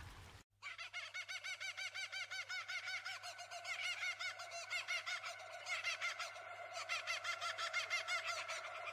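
Rapid, continuous chirping animal calls, about eight to ten a second, starting suddenly about half a second in.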